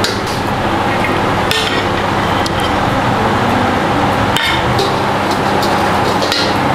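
A metal spatula scraping and clinking against a stainless steel wok and a ceramic bowl as stir-fried papaya leaves are scooped out, with about five sharp clinks. A steady hiss runs underneath.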